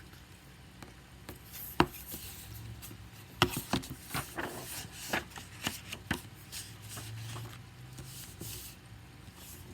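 A picture book being handled: several sharp taps and knocks with bouts of paper rustling and sliding between them, as the book is opened and its pages are turned.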